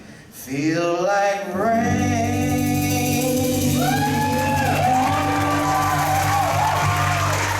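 Live blues band playing the song's final bars, with held bass notes under a sung melody. A brief drop in sound comes right at the start before the band comes back in.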